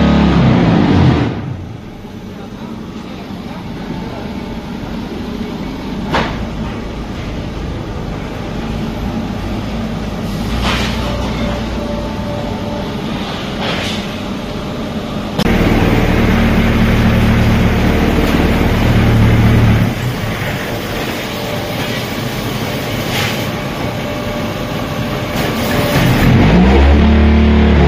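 Hawen QT10-15 automatic concrete block-making machine running: a steady mechanical hum with scattered knocks, louder for about four seconds in the middle of the cycle. Background music plays briefly at the start and again near the end.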